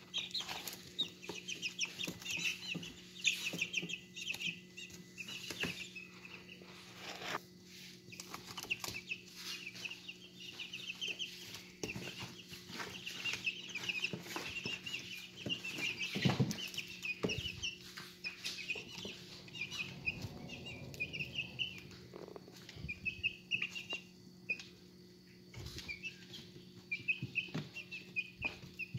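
A brood of young, partly feathered chicks peeping continuously in quick, high chirps, with scattered sharp taps as they peck at a plastic trough feeder. A steady low hum runs underneath.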